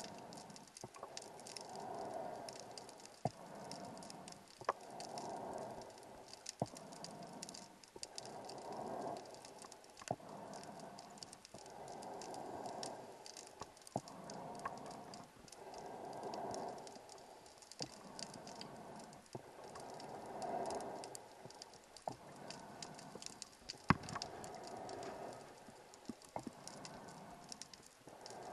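Scuba diver breathing underwater through a regulator: exhaled bubbles rise in a burst about every three to four seconds. Underneath runs a steady fine crackle of clicks, with a few sharper ticks.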